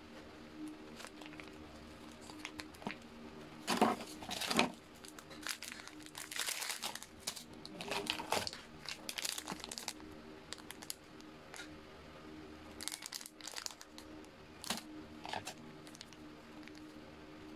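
Foil and plastic food pouches crinkling as they are handled and lifted out of a self-heating rice pot, in irregular bursts of short crackles.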